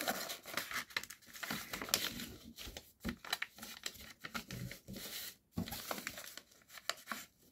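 A sheet of paper being folded in two and creased flat by hand, crinkling and rustling irregularly.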